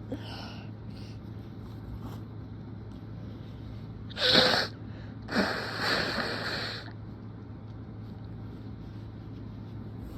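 A person sneezing hard from allergies: one sharp, loud wet sneeze about four seconds in, then a second, longer breathy burst a second later that trails off after about a second and a half. A faint sniff at the very start.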